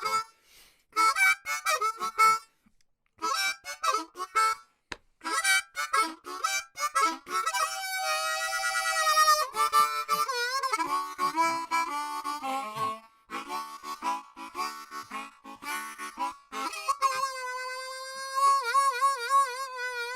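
Harmonica music playing in short phrases of held, bending and wavering notes, with brief pauses between phrases.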